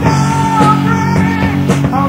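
Rock music: a held, bending lead line over steady low chords.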